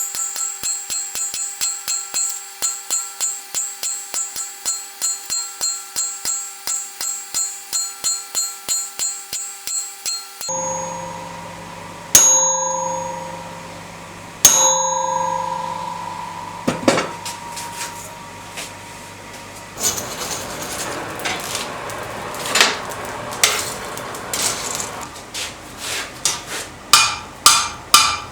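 Hand hammer striking steel on an anvil. The blows come about three a second with a ringing tone after each. About ten seconds in, a steady low hum starts and the hammering breaks into single ringing strikes and irregular blows, then quick ringing blows again near the end.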